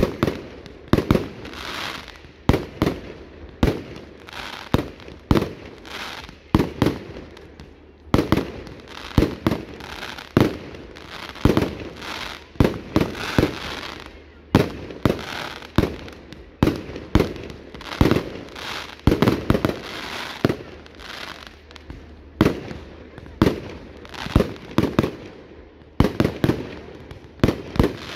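Fireworks going off in rapid succession: a steady run of sharp bangs, about one to two a second, with crackling between them.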